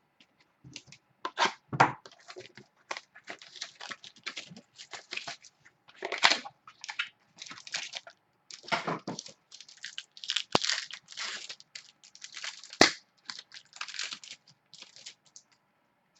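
Trading-card pack wrappers being torn open and crinkled, with cards rustling as they are handled: a run of irregular crinkles and tears, with two sharp clicks in the second half.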